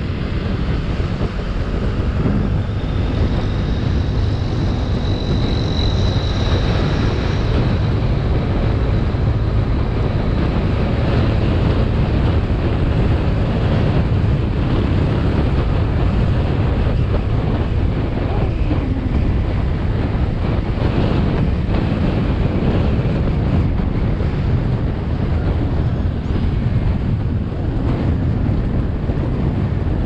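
Steady wind rush buffeting the microphone of a moving Kymco KRV 180 scooter, with the scooter's engine running underneath.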